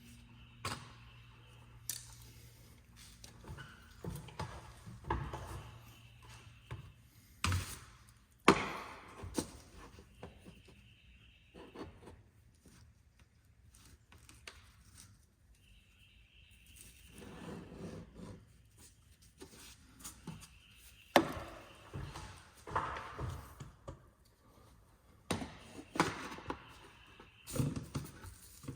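Irregular knocks, taps and short scrapes of hand work with tools, some strikes much louder than others.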